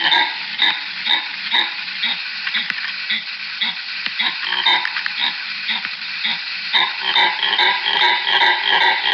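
An animal's harsh barking, coughing calls repeated quickly, about two to three a second. The calls thin out in the middle and come back stronger about seven seconds in.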